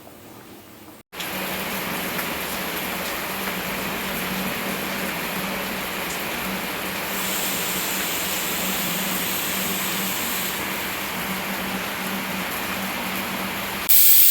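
A steady rushing hiss with a low hum, then near the end a pressure cooker's whistle blasts in loudly with steam, as the cooker of mung and masoor dal comes up to pressure.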